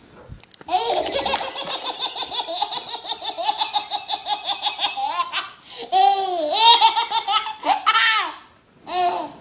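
A person laughing hard, high-pitched, in a long run of quick, even pulses, then a few separate longer rising-and-falling cries in the last few seconds.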